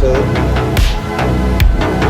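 Background electronic music with heavy bass and a steady beat, about two and a half beats a second.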